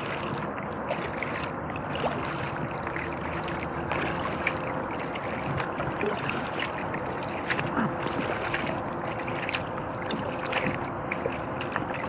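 Water splashing and dripping around an inflatable kayak as it is paddled, in irregular short splashes, over a faint steady hum.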